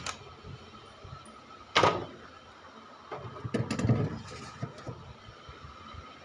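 Knocks and scrapes of things being put back into a fridge. There is one sharp knock about two seconds in and a short cluster of knocks and sliding scrapes near four seconds.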